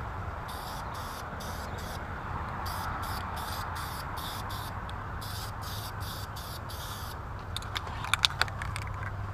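Aerosol spray paint can hissing steadily as a light tack coat goes onto an engine cooling fan, with a few sharp clicks near the end.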